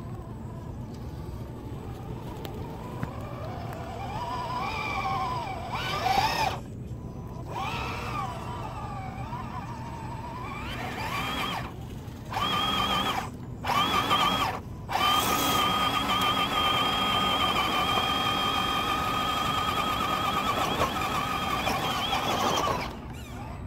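Electric motor and gears of a scale RC crawler truck whining under load on a steep climb. The pitch rises and falls with the throttle, cuts out briefly a few times, then holds a steady high whine for several seconds before stopping near the end.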